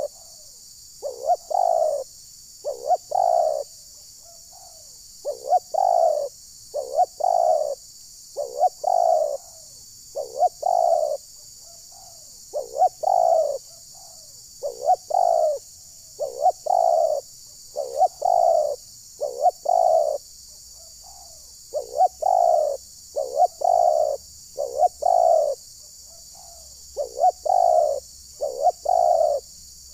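Spotted doves cooing, a rhythmic phrase of two or three short notes repeated about every two seconds with brief pauses: the call of a decoy dove used to lure wild doves.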